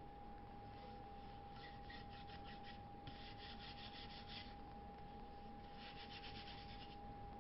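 Faint rapid rubbing strokes on wood, about six a second, in three short spells over a steady faint high hum.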